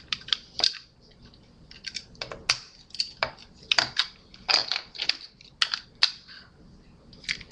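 Irregular clicking and rattling of hard plastic: Beyblade launcher and launcher grip parts being handled and fitted together, a quick uneven series of sharp clicks.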